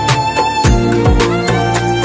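Background song music with a steady beat: pairs of deep drum hits that drop in pitch, under a held high tone and light percussion.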